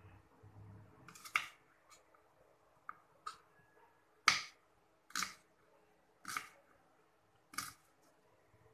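Kitchen knife slicing garlic cloves and striking a thick wooden chopping block: about seven sharp knocks, roughly one a second, the loudest a little past the middle.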